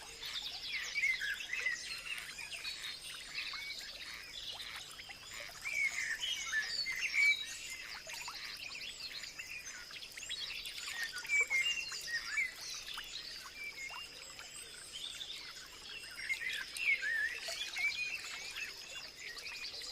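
Several birds chirping and calling in a rural background chorus, many short quick rising and falling notes, over a thin steady high-pitched whine.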